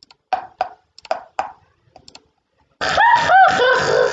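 Cartoon sound effects: a run of short, sharp pops, then from near three seconds in a loud, busy stretch of swooping tones that rise and fall.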